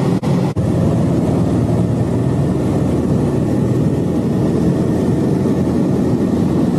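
Steady, loud drone of an aircraft's engine heard inside the cabin, with two brief dropouts in the recording about half a second in.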